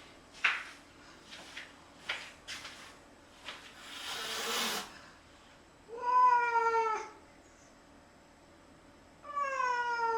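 A stray cat meowing twice: a call of about a second that falls slightly in pitch, about six seconds in, and another starting near the end. Before the meows there are a few light taps and a short rustle.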